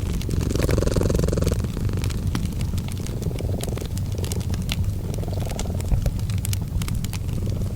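Cat purring in a steady low rumble that swells and eases every second or two, mixed with the irregular crackling and popping of a wood fire.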